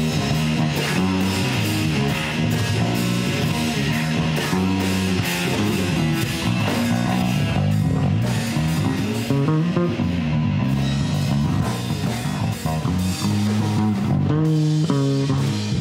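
A rock band playing: electric guitar, electric bass and drum kit together, with a moving bass line and a steady drum beat.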